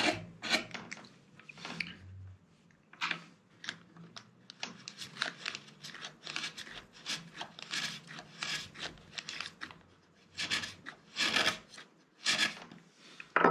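Table knife scraping the chocolate coating off a small chocolate-coated malt biscuit, in many short strokes one after another with brief pauses.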